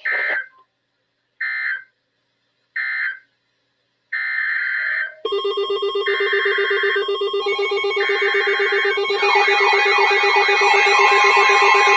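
Emergency Alert System end-of-message code: three short, harsh digital data bursts about a second and a half apart, marking the end of the marine warning. From about four seconds in, a longer data burst starts, then a dense layered mix of more data bursts and steady tones. From about nine seconds, rapidly repeating sweeping alarm tones join in and the mix grows louder.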